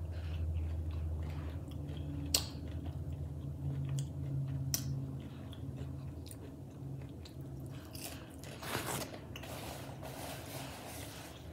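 Close-up mouth sounds of someone chewing crispy battered onion rings, with a few sharp crunchy clicks. Near the end comes a longer rustle as a paper napkin is wiped across the mouth.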